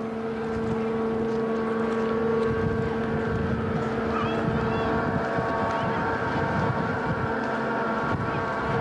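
Steady droning hum from an unseen machine, with wind buffeting the microphone. A few faint high chirps come about four seconds in.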